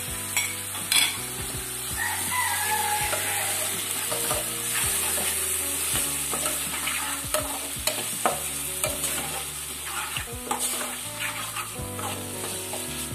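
Chopped tomato, onion and garlic sizzling in hot oil in a pot while a metal fork stirs and scrapes them, with frequent light clicks of the fork against the pot.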